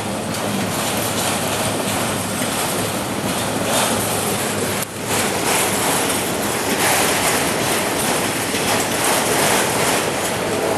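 Freight train of auto-rack cars rolling past: steady noise of steel wheels on the rails, dipping briefly about halfway through.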